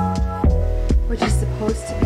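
Background music with a steady beat: drum hits about every half second over held notes and a low bass line.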